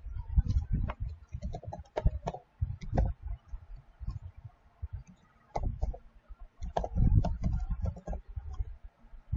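Keystrokes on a computer keyboard as an email address is typed: irregular clicks with dull thumps under them, in two quick runs separated by a pause of about two seconds.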